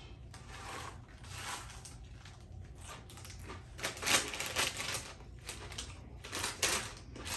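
Irregular crackling and crunching from eating, with the loudest bursts about four seconds in and again about six and a half seconds in.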